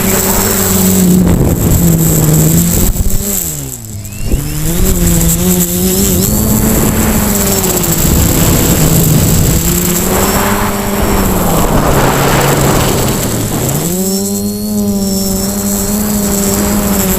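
Quadcopter's electric motors and propellers whining, the pitch rising and falling with the throttle over a rush of air noise. The pitch drops sharply about four seconds in and climbs back, and dips again near the end before jumping back up.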